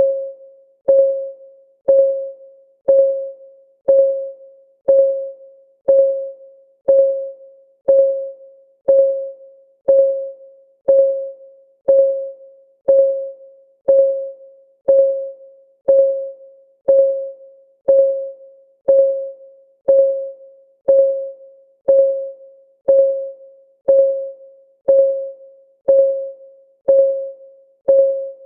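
Clock-ticking sound effect of a countdown timer: one short, pitched tick every second, each dying away quickly, perfectly even.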